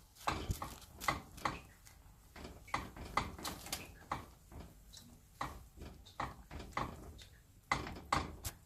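Irregular light clicks and knocks of a utensil against a pot as rice vermicelli is worked into hot fish broth.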